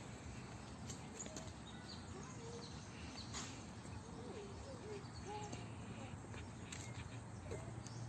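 Faint outdoor background noise with a few short, scattered bird calls and an occasional soft click.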